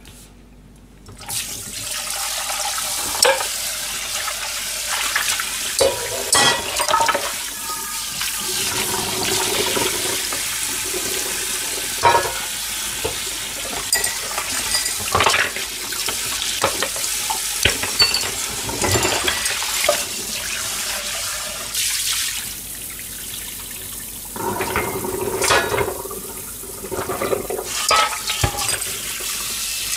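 Kitchen tap running into a stainless steel sink, turned on about a second in, while dishes are rinsed under it, with scattered clinks and knocks of crockery and utensils.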